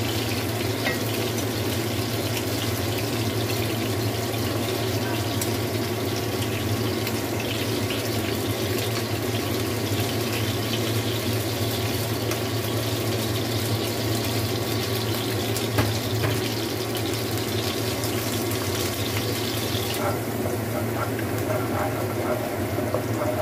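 Steady sizzle of stuffed bitter melon slices frying in oil in a pan, with a low steady hum underneath and light taps of metal tongs. Near the end the hiss drops and turns into lighter crackling as chopped garlic and black beans fry in oil.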